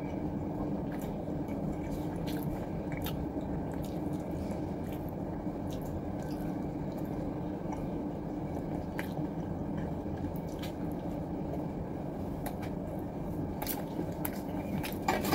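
Close-up chewing and wet mouth sounds of a person eating sushi, with small clicks scattered through and a few more near the end, over a steady low background hum.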